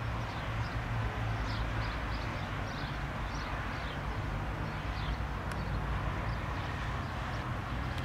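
Steady low hum of a Beech C90A King Air's turboprop engines running at a distance, with birds chirping over it in short, falling chirps.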